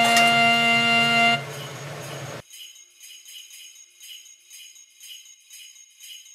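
Background music ends on a held chord about a second and a half in. Then jingle bells shake faintly in a steady rhythm, about two shakes a second.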